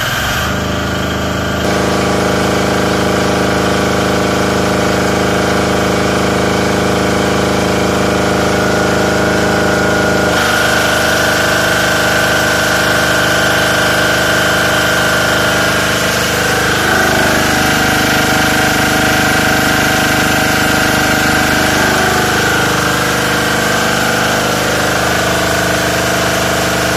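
Rowel DG9000CLE generator's 695 cc single-cylinder, air-cooled four-stroke diesel engine running steadily just after starting. It gets louder about two seconds in and again about ten seconds in; later its pitch sags for several seconds and then recovers.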